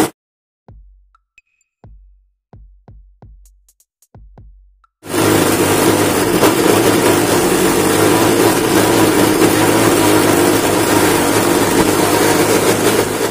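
Electric mixer grinder motor running steadily while grinding a jar of water-swollen Orbeez. It cuts off suddenly at the start, a few faint low thumps follow in the quiet, and the motor starts again about five seconds in and runs on.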